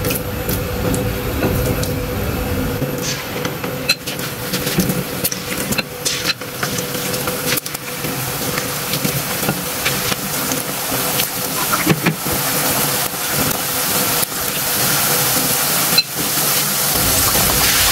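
Boneless chicken pieces in an egg and cornflour coating sizzling as they fry in hot oil, a steady hiss with a few sharp clicks.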